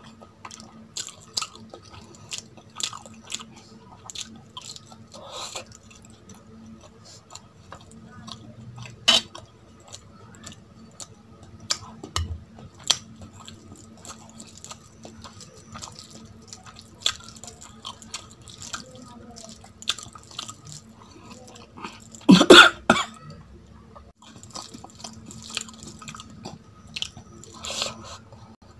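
Close-miked chewing and wet mouth clicks and smacks of a person eating rice and curry by hand, with a louder, longer mouth sound about three-quarters of the way through.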